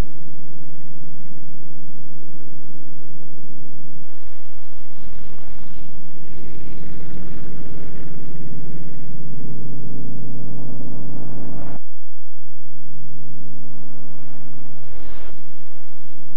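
Piston aircraft engines of Republic P-47 Thunderbolt fighters, Pratt & Whitney R-2800 radials, running during takeoff as a steady low drone. The drone swells from about six seconds in, cuts off sharply about twelve seconds in, then comes back changed around fifteen seconds.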